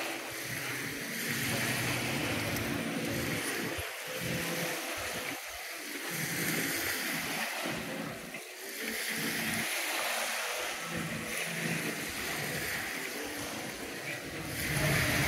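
A distant engine drones unevenly over a haze of wind and water noise.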